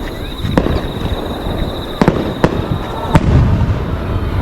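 Aerial fireworks shells bursting: four sharp bangs, the last followed by a low rolling rumble.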